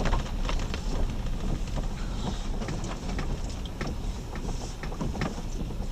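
Jeep Grand Cherokee driving on a wet dirt trail: a steady low rumble of the running vehicle, with many scattered short clicks and taps throughout.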